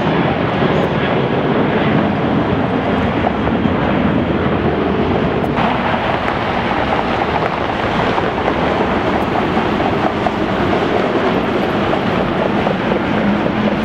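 Jet airliner engine noise: a loud, steady roar whose tone shifts abruptly about five and a half seconds in, as the sound passes from one aircraft to another.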